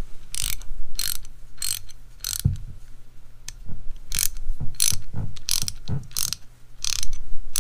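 Craftsman 3/8-inch drive quick-release ratchet being swung back and forth by hand, its pawl clicking in quick bursts about twice a second, with a short pause near the middle.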